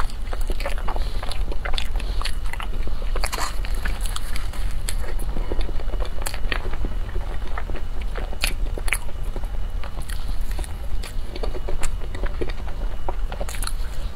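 Close-miked eating: biting into and chewing a soft cream-filled bun, with many short sharp mouth clicks and smacks. A steady low hum runs underneath.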